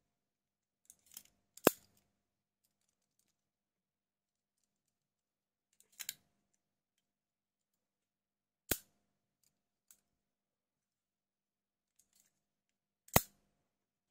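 Sharp, isolated clicks from a homemade spring-loaded automatic knife being worked: one loud snap about two seconds in, a quick double click around six seconds, and single loud snaps near nine and thirteen seconds, with a few faint ticks between.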